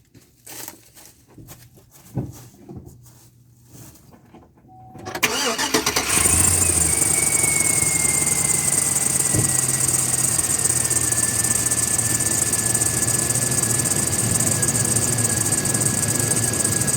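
Engine of a 2004 Chevrolet Silverado cranking and starting about five seconds in, after a few light clicks, then idling steadily. Over the idle runs a thin whine that slowly drops in pitch: a bad serpentine-belt pulley bearing, which the owner takes for one more pulley that needs replacing.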